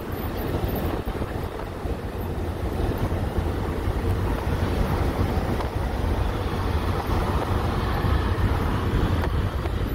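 Steady wind buffeting on the microphone, mixed with a low road rumble.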